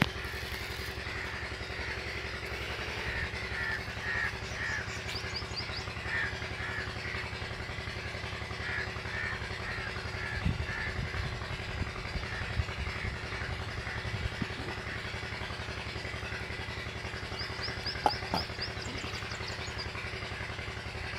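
Crows cawing in repeated calls for the first several seconds, with brief high chirps from other small birds, over a steady low engine hum. A few short sharp knocks, the loudest about 18 seconds in.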